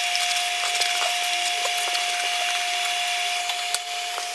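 Crackling hiss of hot water with rice in a steel pot on an induction cooker, full of small ticks, over one steady high whine.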